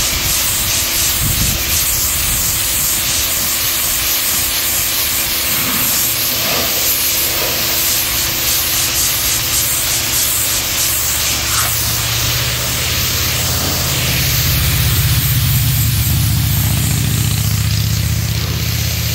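High-pressure water jet from a 1750 psi electric pressure washer spraying onto a textured foam (SeaDek) boat deck: a steady hiss with a faint hum underneath. A lower rumble grows louder about two-thirds of the way through.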